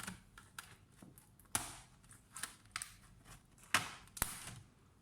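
Plastic bottom cover of an Asus X415E laptop being pried off, its clips snapping loose in a series of sharp clicks and short scrapes, the loudest two near the end.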